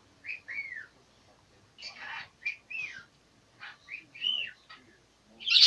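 A pet parrot giving a series of short whistled calls, each rising then falling in pitch, with a harsher noisy call about two seconds in. A short harsh burst near the end is the loudest sound.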